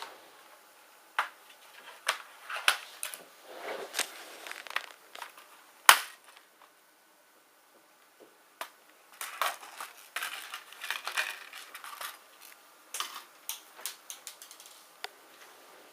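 Hard plastic of a laptop being pried or broken apart: irregular clicks, snaps and crackling bursts, with one sharp loud crack about six seconds in and a dense run of crackling in the second half.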